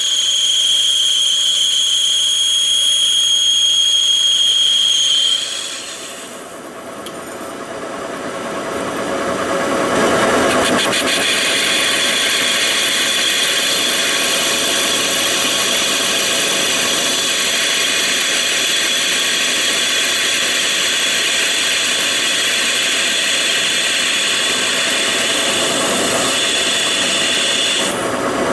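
Monarch engine lathe turning a pulley hub, the cutting tool making a steady high-pitched whine for about five seconds. The sound drops away for a few seconds, then the cut resumes with a steady, rougher machining noise.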